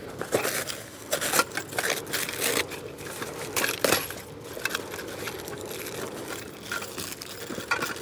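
A small cardboard box being cut and torn open with a knife: irregular crackling and rustling of cardboard, with small metal screws inside clinking and rattling.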